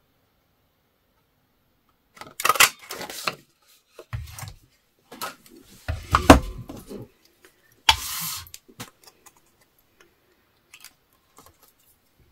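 An old Stampin' Up handheld craft punch being handled and pressed through cardstock: rustling and clicks of paper and plastic, then a heavy clunk about six seconds in as the punch is pushed down to cut the greeting out, followed by a short scrape and a few light ticks.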